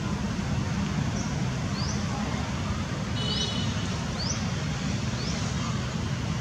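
Steady low outdoor rumble, with about five short, high, rising chirps spread through it.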